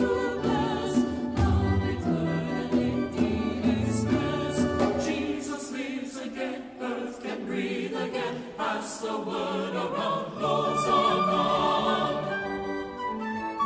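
Choir singing a hymn of thanksgiving with instrumental accompaniment.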